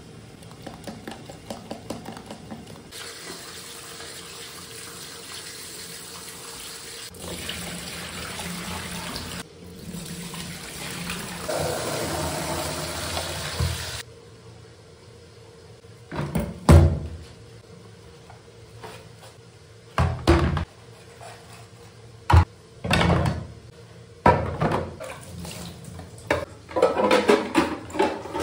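Kitchen tap running into a stainless steel sink as dishes are washed, a steady rush of water for the first half. Then plastic containers and blender parts knock and clatter against the sink and dish rack as they are rinsed and put away.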